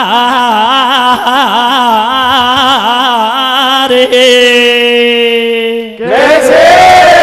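Male folk singer drawing out a long wordless vocal phrase through a microphone, wavering in pitch and then holding one steady note, over a steady drone. About six seconds in the voice breaks off briefly and a new phrase swells up and bends in pitch.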